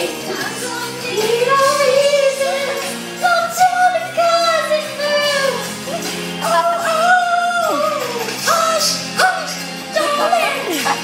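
Karaoke: a pop ballad backing track over the sound system, with a young singer's voice on the microphone holding long notes that bend up and down.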